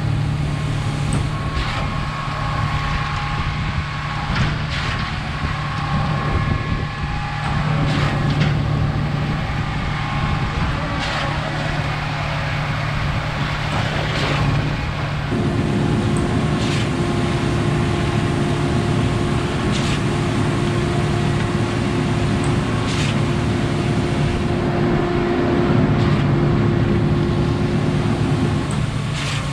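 Heavy diesel engine of a concrete pump truck running steadily, with sharp knocks every few seconds. A steady higher whine joins about halfway through and stops near the end.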